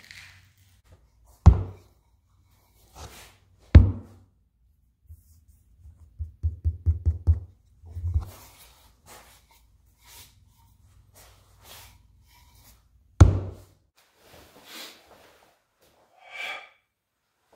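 Sharp hard knocks from handling the chi ishi, a wooden dowel handle set in a mortar-filled container, against the workbench, over a low hum. Three loud single knocks come about a second and a half in, near four seconds, and about thirteen seconds in, with a quick run of about eight lighter knocks around six to seven seconds.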